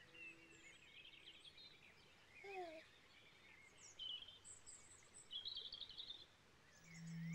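Faint birdsong: scattered high chirps and twitters. A lingering chime tone fades out in the first second, and a low sustained musical tone comes in near the end.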